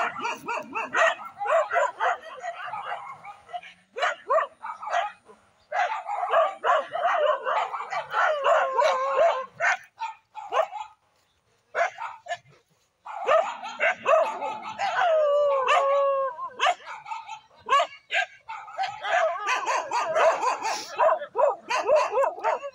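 Several village dogs barking in quick, overlapping volleys during a fight, with a short lull about halfway through. A long drawn-out cry falling in pitch comes about two thirds of the way in.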